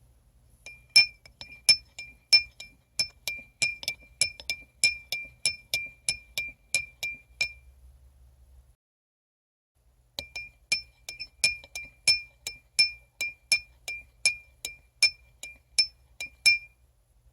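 Metal spoon stirring in a cup, clinking against the side about three times a second, each clink ringing at the same pitch. Two runs of stirring with a short pause about halfway through.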